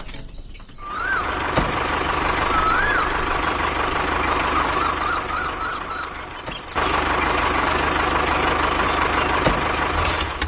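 A machine running with a steady noisy drone and a high whine, briefly dropping out about two-thirds of the way through and cutting off suddenly at the end. A few short chirps sound over it.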